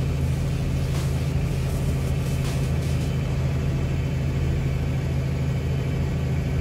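New Holland T7.190 tractor's six-cylinder diesel engine running at a steady pace, heard from inside the cab as an even low drone while the tractor moves slowly across the field.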